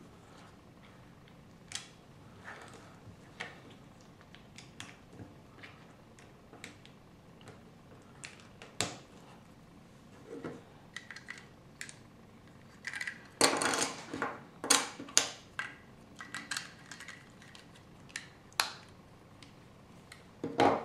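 Plastic Lego pieces clicking and clattering as they are handled and pressed together on a wooden table: scattered sharp clicks, with a quick run of louder clicks a little past the middle.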